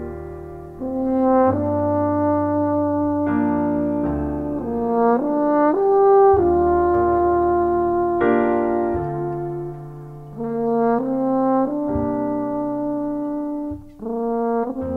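Jazz ballad: a French horn plays a slow melody in long, held notes over piano and bass.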